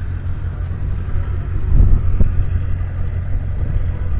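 Ford 6.2-litre six-cylinder diesel tractor engine idling, a steady low rumble, with a louder, uneven stretch and a couple of knocks about two seconds in.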